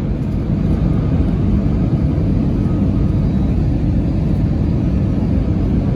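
Airplane landing: a steady, loud, low rumble with no sudden changes.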